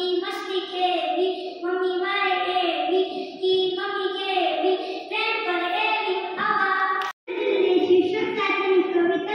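A young boy reciting a Gujarati poem in a sing-song, chanted melody. The sound cuts out briefly about seven seconds in, and a young girl's voice takes over.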